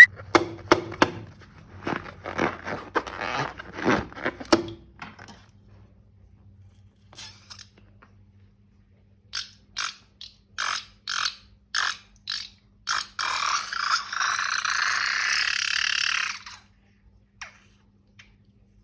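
Slime being handled for balloon-slime ASMR: a few seconds of sticky clicking and crackling, a pause, then a row of short separate squelches, and finally a steady hissing rush lasting about three seconds that stops suddenly.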